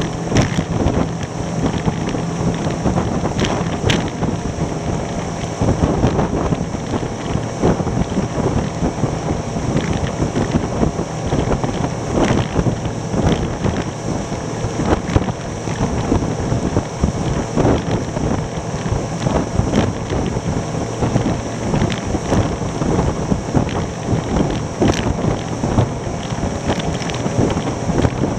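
Wind buffeting the microphone over the steady running of a 3D Tender Nividic rigid inflatable boat's engine at about 30 mph, with occasional short thumps as the hull hits the chop.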